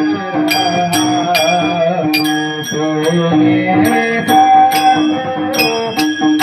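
Varkari kirtan music: small hand cymbals (taal) struck about three times a second, ringing brightly over sustained steady tones and a wavering melody.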